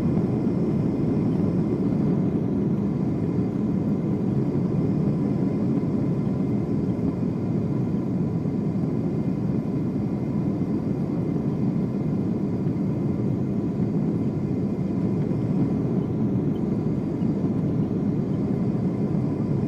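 Steady cabin roar inside a Boeing 747-8 on final approach with flaps extended: its four GEnx engines and the airflow heard from a window seat, deep and even, with a faint steady high tone running through it.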